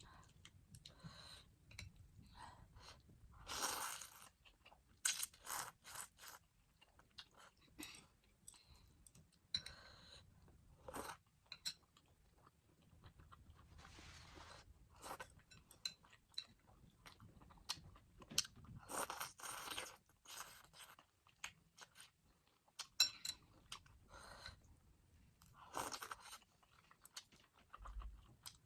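Close-up eating sounds of spicy ramen and chicken sausages: chewing and crunching, with irregular sharp clicks and scrapes and a few longer noisy sounds lasting about a second.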